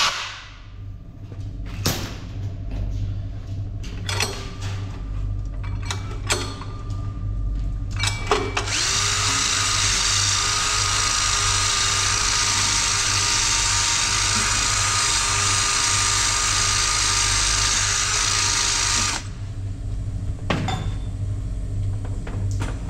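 A few clicks and knocks, then a power tool starts about eight seconds in, runs steadily with a fixed whine for about ten seconds and stops abruptly, over a steady low hum.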